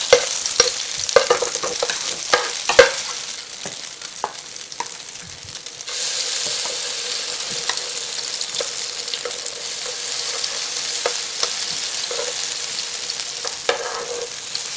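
Small tuna pancakes sizzling in canola oil in a non-stick frying pan, with a spoon clicking and scraping against the pan as the patties are placed and shaped, mostly in the first few seconds. The sizzle steps up about six seconds in and carries on steadily.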